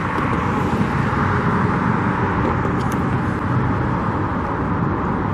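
Steady outdoor traffic noise, an even rumble and hiss with no distinct events.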